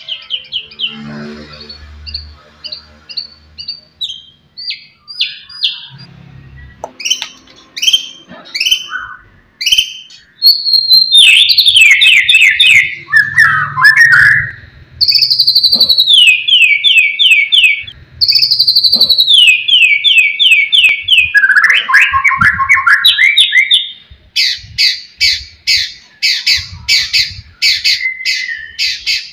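White-rumped shama singing loudly: a long, varied song of short whistled notes, rapid runs of repeated notes that fall in pitch, and fast dense chattering near the end.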